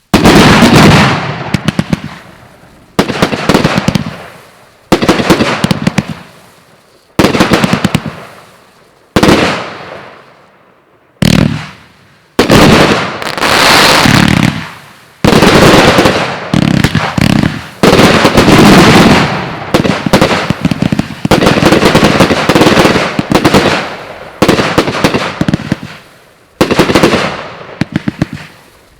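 Hallmark Fireworks 'Relentless' compound cake firing very loud salutes: single bangs with crackling tails about every two seconds, then from about halfway through the shots come fast, overlapping into a near-continuous barrage.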